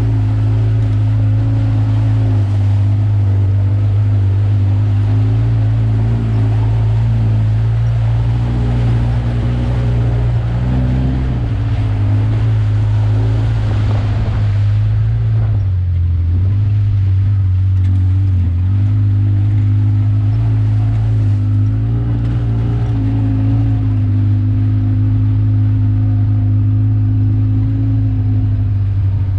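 Off-road vehicle's engine running steadily at low speed while crawling along a muddy trail. Its note dips and shifts for a few seconds about halfway through, then settles back to the same steady pitch.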